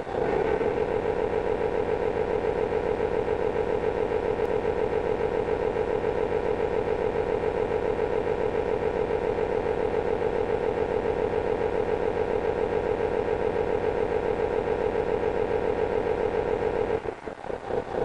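Tamiya RC truck's SMX sound unit playing a diesel truck engine through its small speaker: from a pulsing idle it goes to a steady, higher, louder run with a strong humming tone while the hook-lift arm is raised, and drops back to the pulsing idle near the end.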